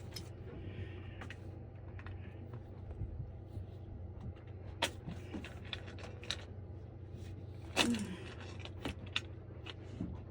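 Scattered light clicks and knocks of plumbing fittings and pipe being handled during a water pump install, over a steady low hum.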